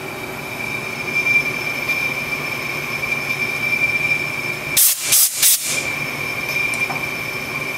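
Hardinge HLV CNC lathe boring the chamber end of a steel rifle barrel, with a steady high-pitched whine over the machine's running noise. About five seconds in come three short, loud hissing bursts in quick succession.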